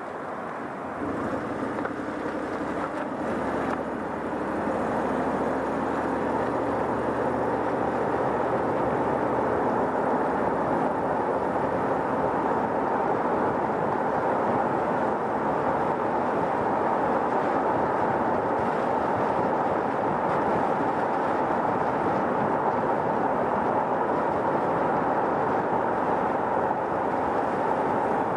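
A car driving on a road, heard from a camera mounted on its roof: a steady rush of tyre and road noise that builds over the first few seconds as the car picks up speed, with a faint engine hum early on.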